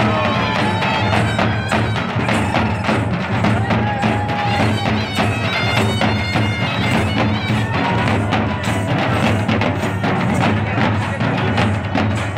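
Several large hand-held drums beaten together in a fast, dense, loud rhythm, with a few brief high held tones above it.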